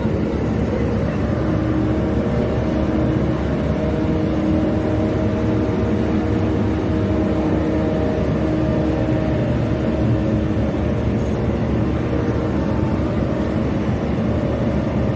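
Steady, loud mechanical drone with a few held humming tones, the noise heaviest in the low end.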